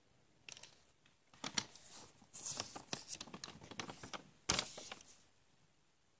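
Paper pages of a lined notebook being turned by hand: a run of rustles and crisp flicks, ending in one sharp page snap about four and a half seconds in.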